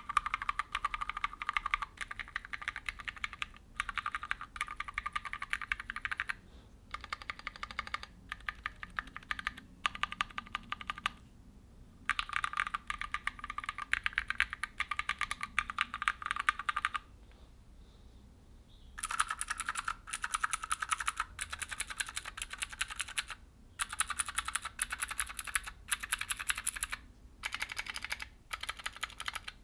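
Typing on a Keychron Q0 mechanical number pad in bursts of rapid keystrokes, first with tactile Gateron G Pro Brown switches. After a short pause about 18 seconds in, the typing continues on clicky Gateron G Pro Blue switches, whose keystrokes carry a sharper, higher-pitched click.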